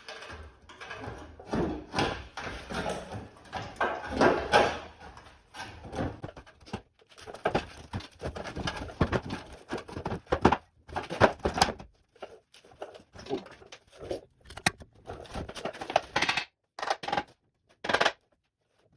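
Irregular knocks, clunks and clatter of a steel truck-frame section and hand tools being handled and worked into place, with a few sharper ringing strikes.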